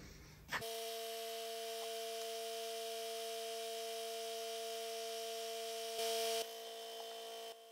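A steady, even hum made of a few fixed tones, with abrupt jumps in level where the footage is cut.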